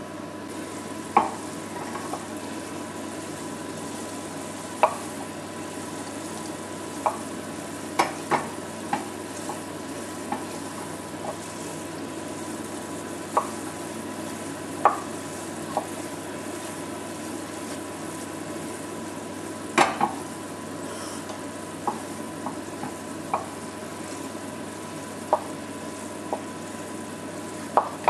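Sugar syrup boiling down to caramel in a stainless-steel saucepan over a gas flame, a steady bubbling hiss, while a wooden spoon stirs it and knocks against the pan now and then in sharp single clicks, with a quick run of knocks near the end.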